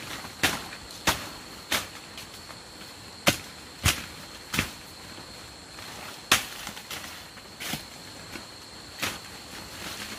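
Sharp chops of a blade cutting through undergrowth stems, about ten strokes at irregular intervals. A steady high-pitched insect drone runs underneath.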